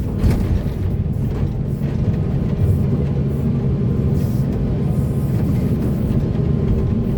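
Diesel engine of heavy earthmoving machinery running steadily under load, with a few knocks in the first couple of seconds.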